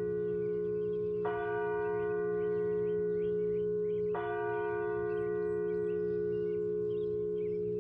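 Church bell tolling: two strikes about three seconds apart, the first about a second in and the second about four seconds in. Each strike rings on into a long, steady hum that carries to the next.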